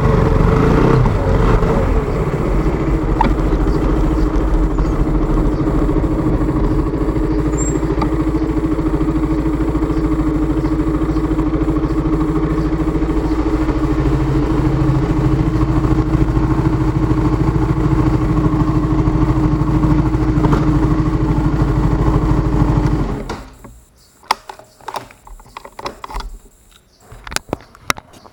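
KTM motorcycle engine idling steadily, then switched off about 23 seconds in, after which only a few faint clicks and knocks are heard.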